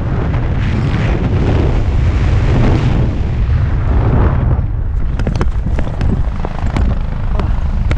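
Wind buffeting a small action-camera microphone during a tandem parachute descent, a loud low rumble. It eases about four and a half seconds in as the pair touch down, and a few sharp clicks and knocks follow.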